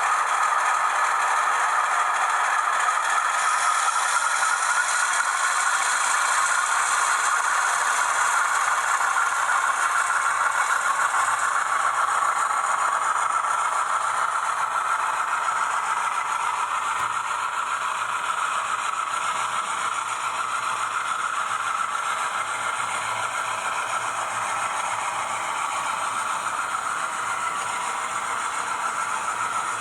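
Auscision Models 442 class model diesel locomotive running along its track, a steady rattle that eases slightly after the midpoint.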